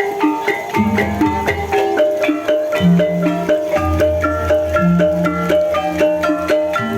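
Banyumasan Javanese gamelan music for an ebeg dance: quick runs of mallet-struck pitched notes over deep, lingering gong-like tones that sound every second or so.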